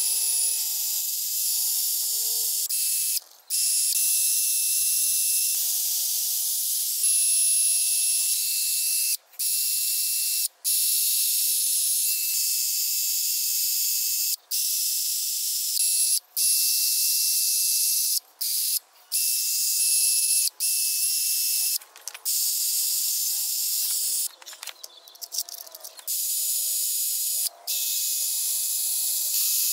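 Wire wheel on a drill scrubbing surface rust off a cast-iron small-block Ford cylinder head: a steady high scratchy hiss with a faint motor whine, cut off briefly about a dozen times as the trigger is let go and squeezed again.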